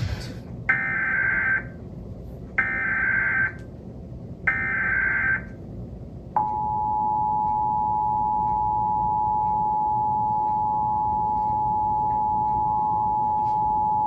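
Emergency Alert System test tones heard through a television's speakers. Three short bursts of SAME header data screech come first, each about a second long. Then the steady two-tone attention signal sounds for about eight seconds.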